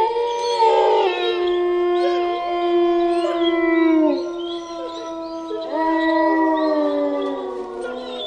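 Wolves howling together: several long howls at different pitches overlap, some gliding down at their ends. A fresh howl starts about six seconds in.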